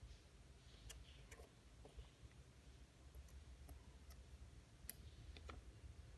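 Faint, irregular clicks of small metal watchmaker's tools touching a mechanical watch movement during disassembly, over a low steady hum.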